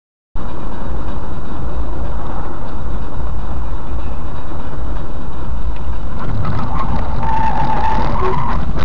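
Steady rumble of road and engine noise in a moving car's cabin, as picked up by a dashcam's microphone, cutting in abruptly a third of a second in. A thin steady tone joins in the last second and a half.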